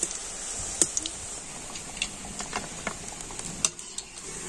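Hot oil sizzling in a steel karai, with scattered sharp clicks and taps of a slotted steel spoon against the pan as fried semolina pitha are lifted out.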